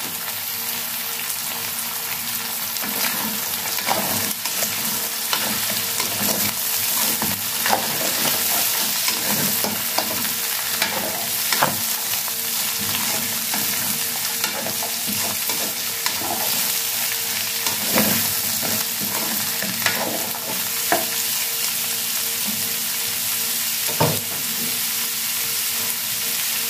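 Sliced hotdogs and diced carrots sizzling as they sauté in an aluminium pot. A utensil scrapes and knocks against the pot now and then as they are stirred.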